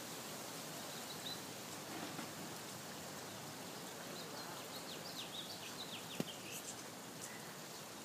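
Steady outdoor hiss, with a small songbird giving a quick run of short descending chirps in the middle and a single sharp click about six seconds in.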